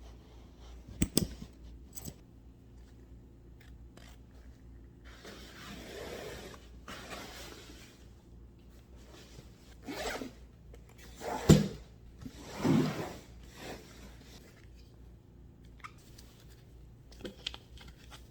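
Zipper on a dog booster car seat's cushion being pulled in several separate rasping strokes as the cushion is zipped onto the seat's base. There is a click about a second in, and the three loudest pulls come close together past the middle.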